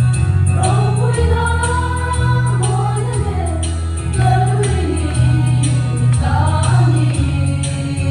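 Women's choir singing a gospel song in unison, over a deep bass line and a steady percussion beat of about four ticks a second.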